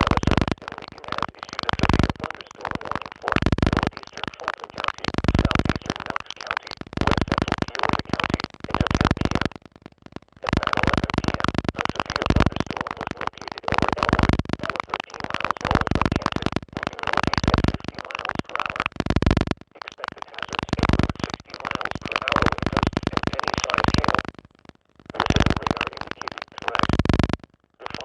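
Weather radio alert broadcast badly distorted into a loud, harsh garble in choppy bursts with a few brief dropouts, the announcer's voice mangled past recognition. The uploader blames the broken audio on a video call he had just left before recording.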